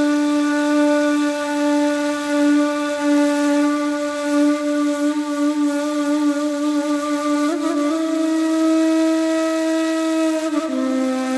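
Ney, the end-blown reed flute, playing a slow improvised taksim in makam Bestenigâr, the opening solo of a Mevlevi ayin. It holds long, breathy notes, steps up to a higher note about seven and a half seconds in, and drops to a lower one near the end.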